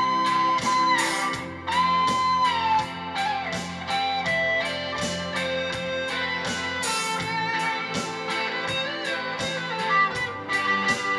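Live rock band playing an instrumental passage: an electric guitar lead of held notes that bend and slide down, over a steady drumbeat, bass and keyboards.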